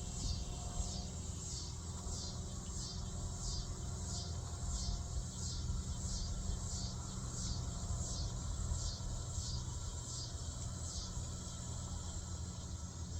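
An insect chirping in a steady rhythm, about two high chirps a second, stopping near the end, over a steady low rumble.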